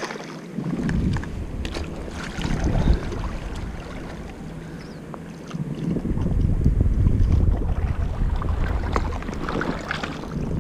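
Wind rumbling on the microphone, with water sloshing and splashing as a hooked Indo-Pacific tarpon is played in shallow water and scooped into a landing net. The rumble grows heavier from about halfway through.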